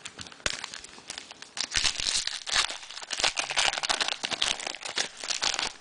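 A pack of trading cards being handled and sorted through by hand: continuous crinkling and rustling made of many small, sharp crackles.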